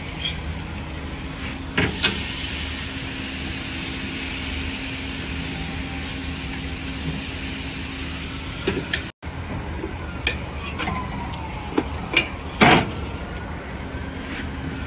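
Marinated chicken pieces sizzling on a charcoal grill as they are laid on, the hiss starting with a clack about two seconds in. Later come a few sharp clanks of metal on the grill, the loudest near the end, over a steady low hum.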